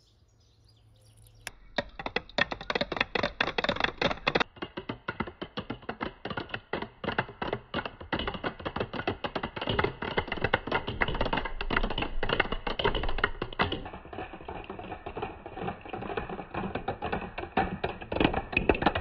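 Many balls bouncing down a staircase of wooden slats: a dense, rapid clatter of taps and knocks that starts about a second and a half in and keeps going.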